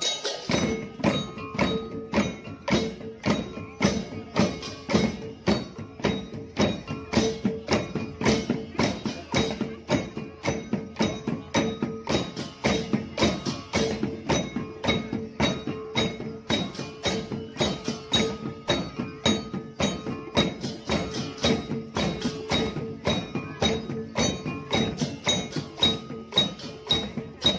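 Balinese okokan, large wooden cowbells swung from the waist, clattering in a steady driving rhythm of about three beats a second together with drums and cymbals (kendang and cengceng), as a parade percussion ensemble.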